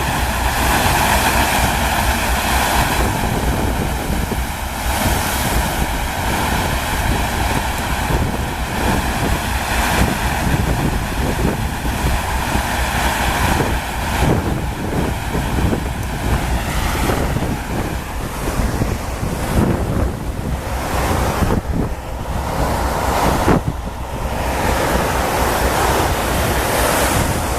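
Continuous rush of water sheeting over a FlowRider surf simulator, with wind buffeting the microphone.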